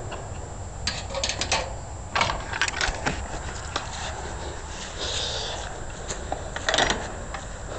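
Irregular clicks, knocks and rattles of a garden gate being handled, its latch worked and the gate pushed open and shut, with a brief rustle midway.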